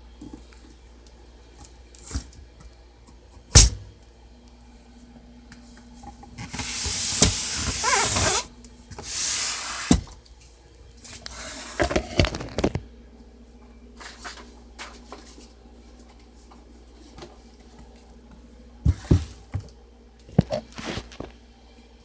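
Olivetti Underwood Studio 44 portable typewriter being handled and worked: scattered mechanical clicks and clunks with one sharp knock, and two longer rasping, sliding sounds from its moving parts a few seconds in.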